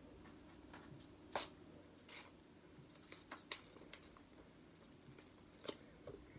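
Faint rustling and handling of a parcel's packaging as it is worked open, with a few sharp clicks and scrapes; the loudest click comes about a second and a half in.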